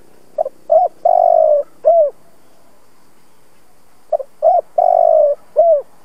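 Spotted dove cooing: two identical four-note phrases about four seconds apart, each a short note, a second short note, a long slightly falling note and a final short note.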